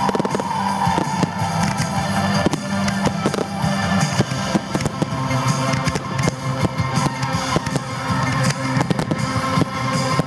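Aerial fireworks shells bursting in quick succession, with many sharp bangs and crackles, over music.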